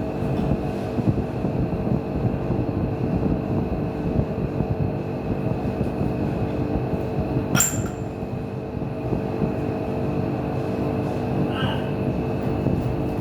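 Steady low mechanical rumble with a constant hum, and a single sharp metallic clink about seven and a half seconds in.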